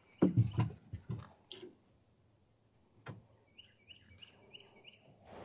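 A crappie swung into the boat: a few loud knocks and thumps in the first second and a half as the fish flops and is grabbed by hand. About a second and a half later a bird chirps five times in quick succession.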